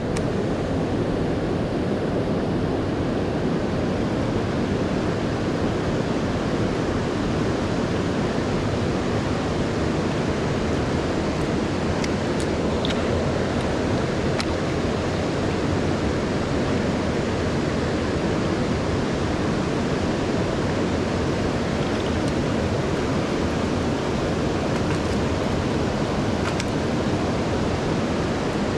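Steady, unbroken rush of fast-flowing river water over rapids.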